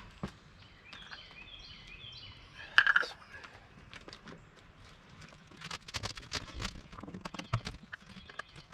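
A bird sings a short series of high notes. About three seconds in comes one sharp clank, then a run of light knocks and clicks from something being handled.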